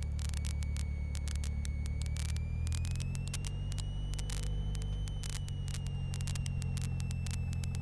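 Cessna 172 Skyhawk's piston engine and propeller running steadily at low power as the plane taxis onto the runway for takeoff. A thin whine rises in pitch about two and a half seconds in and then slowly settles, over many faint clicks.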